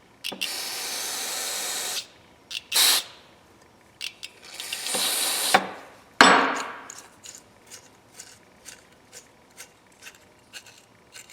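Aerosol carburetor cleaner sprayed into an adjustable wrench in bursts, the first a steady hiss of about two seconds and three shorter ones after it. Then the wrench's adjusting worm screw is turned, giving a run of small clicks about three a second: grit and sand inside the mechanism.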